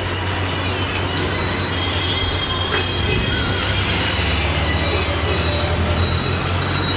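Steady background noise with a low hum.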